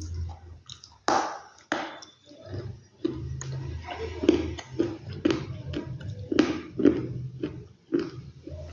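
Dry clay or earth pieces crunching and snapping in a quick irregular series of crisp cracks, one sharp snap about a second in and a cluster of loud crunches in the middle.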